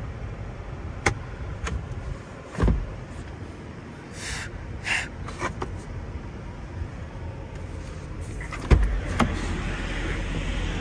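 Clicks and knocks of an SUV's cabin trim being handled: the sun visor and its vanity-mirror cover snapping, a low thump and a few soft rubs against the headliner, then the loudest thump near the end as the door is opened, after which a steady low hum is louder.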